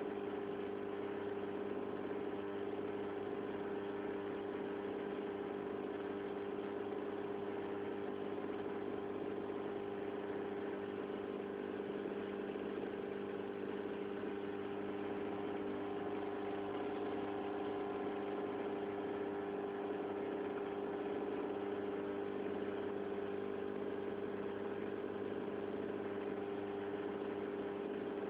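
Aquarium pump humming steadily, a constant mains hum with no change in pitch or level.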